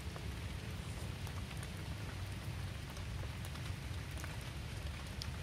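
Steady rain falling, with scattered sharper drops tapping.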